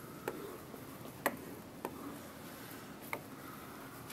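A pen tip tapping against a whiteboard as axes are drawn: four faint, sharp ticks at uneven intervals over quiet room tone.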